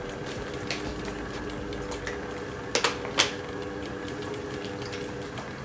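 Shopping cart rolling down a supermarket aisle, its wheels giving a steady fast rattle over a low steady hum. Two or three sharp crackling clicks about three seconds in are the loudest sounds.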